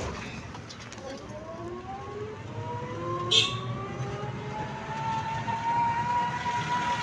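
Vehicle running, heard from inside the cabin: a low rumble under a motor whine that climbs in pitch as it picks up speed, then holds steady. A brief high-pitched chirp cuts in about three seconds in.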